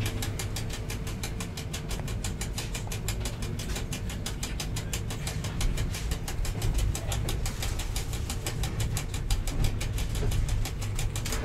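Train running along the track, heard from inside the cab: a steady low rumble.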